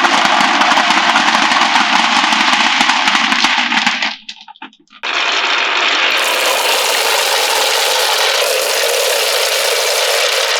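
Many marbles rolling and clattering down wooden marble-run tracks in a dense, continuous rattle. It breaks off abruptly a little after four seconds and starts again about a second later, lighter and higher in pitch.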